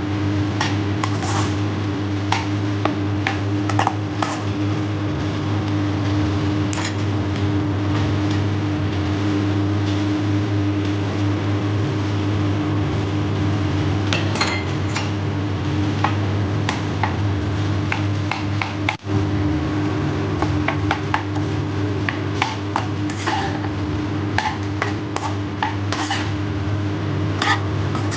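Spatula scraping and tapping against a granite-coated wok as fried rice is stir-fried, in quick irregular clicks and scrapes, over a steady low hum.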